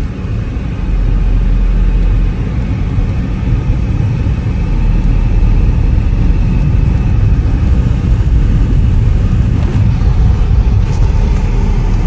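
Car driving on the road: a steady, loud low rumble of road and engine noise.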